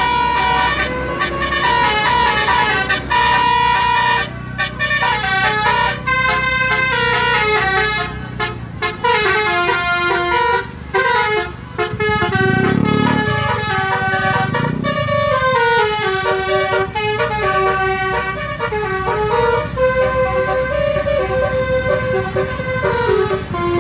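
Bus telolet basuri musical air horn playing a fast melody, its notes stepping up and down in quick succession with two horn tones often sounding together. A brief low rumble shows under it midway.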